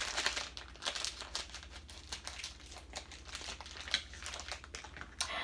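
Plastic toy packaging crinkling and rustling in hands as a toy pack is unwrapped, with irregular crackles.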